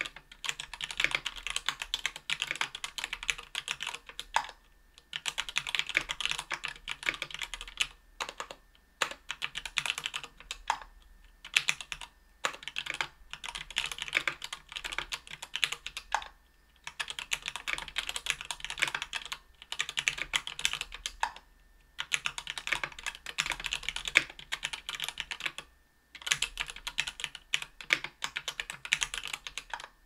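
Typing on a KBDfans Tofu 60% aluminium keyboard with lubed Tealios V2 67g linear switches, an aluminium plate and GMK keycaps. The keystrokes come in quick runs a few seconds long, broken by short pauses.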